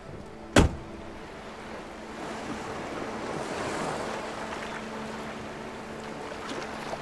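A car door slams shut once, sharply, about half a second in. Then surf washes onto the shore with wind, swelling to a peak midway and easing off.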